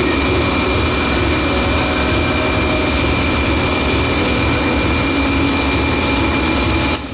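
Automatic case erector and carton sealing machine running: a steady mechanical noise with a constant high whine over a low hum, cutting off near the end.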